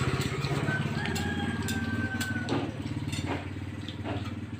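A small engine idling steadily, with a few light clicks over it and a thin, steady whistle-like tone from about a second in to midway.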